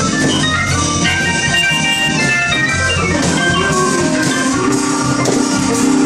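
Live blues band playing loudly: electric guitar over drums, with long held notes and a melody moving step by step above a steady bass.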